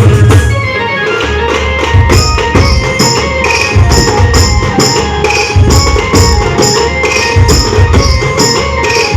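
Instrumental Adivasi band music: a melody over a steady drum beat, with regular jingling percussion strikes on the beat.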